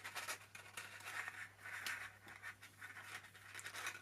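Faint, irregular rustling and scratching of paper cupcake cases and cord being handled as a knot is tied in the cord.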